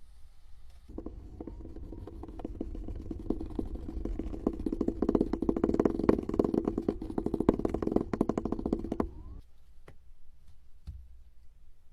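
Kinetic sand being worked: a dense run of rapid crackling ticks over a steady low hum from about a second in until about nine seconds, loudest in the middle, then a couple of single clicks.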